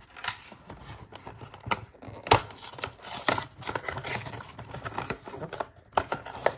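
Cardboard toy-car box being opened by hand: a run of scraping, tearing and crinkling of the packaging, broken by sharp snaps, the sharpest about two seconds in.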